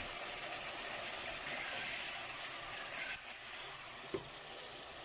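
Steady sizzling hiss of the Manchurian sauce cooking in the pan, a little quieter after about three seconds.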